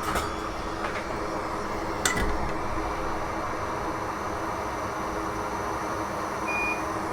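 Steady fan whir from bench equipment, with a few light clicks of tools on the workbench, three in the first two seconds.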